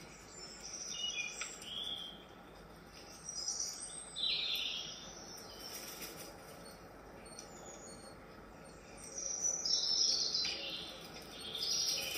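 Birdsong played back from a CatTV cat-entertainment video on an Amazon Echo Show's speaker: scattered bursts of high chirps, the loudest about four seconds in and again near ten seconds, over a faint steady hiss.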